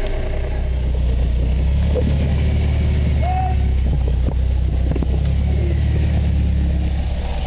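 Off-road 4x4's engine running steadily at low revs under load, with a few sharp clicks and knocks.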